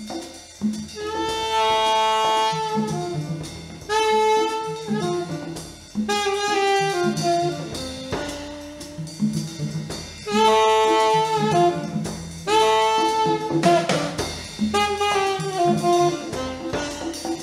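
Jazz trio playing: an alto saxophone plays short, repeated melodic phrases of a second or two each, entering about a second in, over a walking upright bass and a drum kit.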